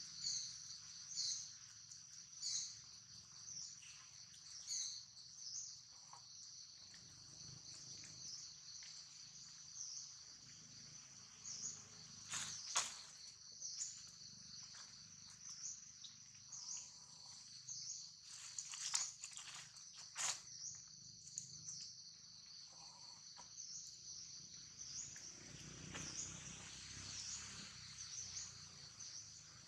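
Steady, high-pitched drone of insects, pulsing about once a second, with a few sharp crackles of dry leaves.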